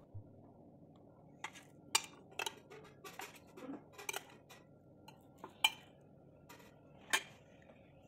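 Metal spoon clinking against plates as idlis are scooped and served onto stainless steel divided plates: about a dozen sharp, irregular clinks, the loudest about two, five and a half and seven seconds in.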